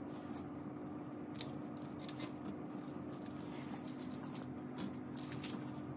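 Faint, scattered taps and light scrapes of a small paintbrush dabbing paint onto a model volcano, over a steady hum.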